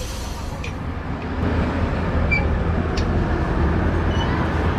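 Heavy truck's diesel engine running, a steady low rumble, with a faint click about three seconds in.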